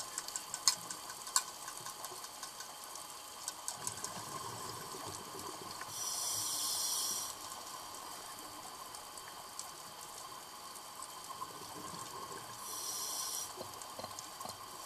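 Scuba regulator exhaust bubbles heard underwater: two bursts of bubbling hiss, one per exhaled breath, about six seconds in and near the end. Between them there is a steady underwater hiss with scattered faint clicks.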